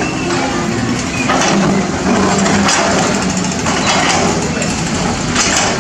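Caterpillar 320D excavator's diesel engine running steadily under load, with a few irregular sharp cracks and crunches of concrete being broken up.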